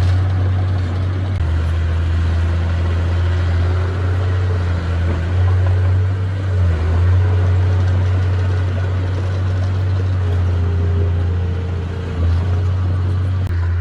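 Heavy diesel engine of earthmoving machinery running steadily with a deep low drone, its load shifting slightly every few seconds.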